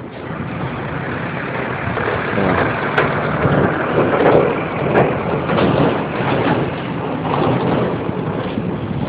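Road traffic: a vehicle passing close by, loudest around the middle, over wind noise on the phone's microphone.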